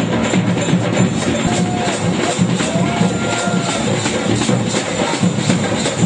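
A drum troupe playing a fast, steady rhythm on large bass drums and side drums struck with sticks.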